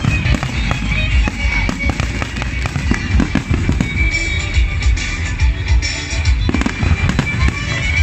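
Aerial fireworks display going off nonstop: deep booming bursts and rapid sharp cracks, with music playing alongside.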